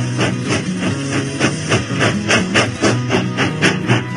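Background music with a steady beat of about four strokes a second over a shifting bass line.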